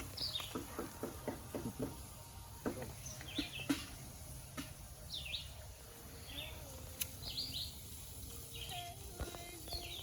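Small birds chirping outdoors: short, high, falling chirps repeated every second or two, over a steady low rumble, with a few scattered clicks and knocks.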